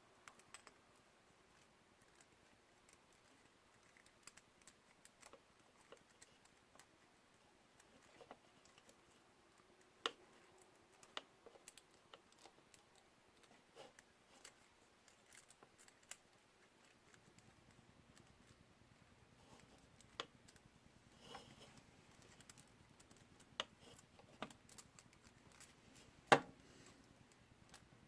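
Faint, scattered small clicks and taps of hands handling the small parts of a drone camera gimbal while fitting a ribbon cable, with one sharper click near the end.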